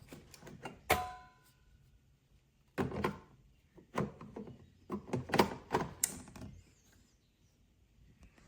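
Clunks and clatter of hard objects being handled and set down, in three short bursts. About a second in there is one sharp metallic clink that rings briefly.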